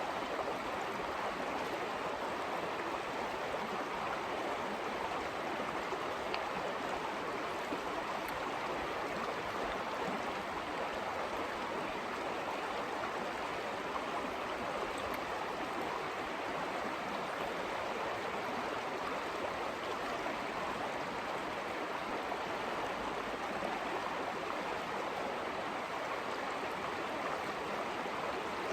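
Steady rush of a mountain creek flowing over rocks.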